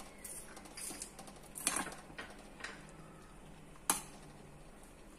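A spoon stirring thick chocolate pudding in a stainless steel saucepan: quiet scrapes with a few light clicks against the pan, the sharpest a little before four seconds in.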